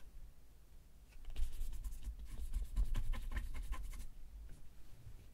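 Cotton-gloved fingertip scratching the scratch-and-sniff panel of a trading card: a run of quick, quiet scratching strokes that starts about a second in and lasts about three seconds.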